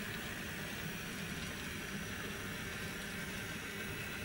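N-scale model locomotive, Union Pacific No. 1943, freshly converted to DCC, running slowly along the track with a low steady rumble and a faint whine over background hiss.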